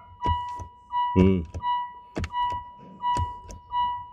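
Mitsubishi Montero Sport's in-car warning chime beeping over and over, about three beeps every two seconds, while the ignition stays on because the stiff push-start button will not switch it off.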